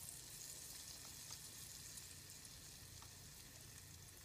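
Hot oil sizzling faintly and steadily around pieces of food deep-frying in a small pot, a soft hiss with small scattered crackles.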